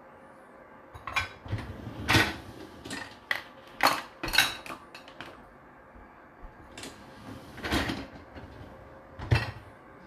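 Wire racks of a Whirlpool dishwasher being handled and slid, the loaded dishes, pans and glasses clattering. A run of clattering knocks comes in the first half, then two more near the end.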